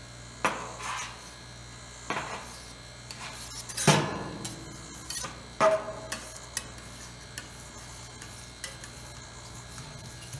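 Metal palette knives scraping and tapping on the chilled stainless-steel pan of a fried ice cream machine, working a half-frozen cream mixture in several separate strokes, the loudest about four seconds in. A steady low hum runs underneath.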